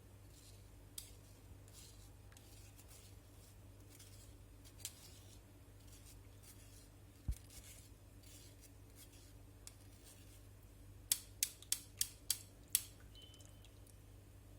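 Quiet kitchen handling sounds over a low steady hum: scattered light ticks, a soft knock about halfway through, then six sharp clicks in quick succession, about three a second, near the end.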